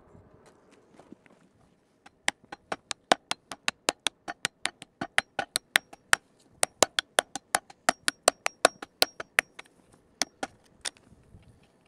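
Claw hammer beating a red-hot 3 mm steel leaf blank on a wooden block, quick sharp blows about five a second, starting about two seconds in and stopping shortly before the end.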